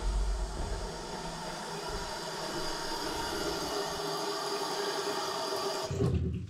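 Water running from a tap in a thin stream into a ceramic bathroom washbasin, a steady hiss that cuts off abruptly near the end.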